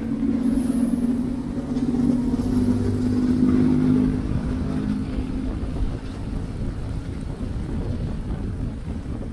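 A motor vehicle's engine running close by with a steady low hum that fades about five seconds in, leaving a low rumble of traffic noise.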